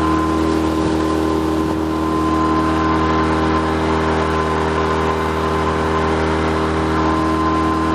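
Motorboat engine running at a steady speed while the boat is underway: a constant hum over a rushing hiss.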